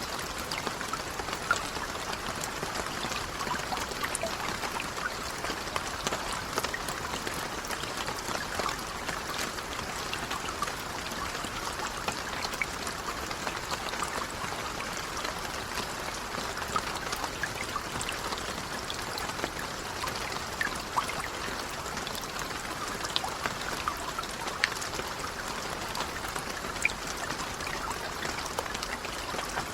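Light rain falling steadily, a soft even patter with scattered individual drop ticks.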